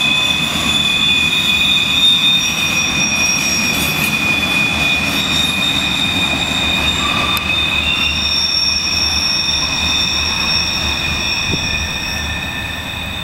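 Coal hopper cars of a freight train rolling past, their steel wheels squealing against the rails in several steady high-pitched tones over a low rumble. The sound eases off slowly near the end as the last car moves away.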